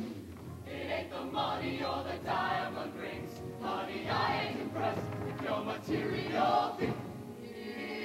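Show choir singing in full voice while dancing, in phrases about a second long.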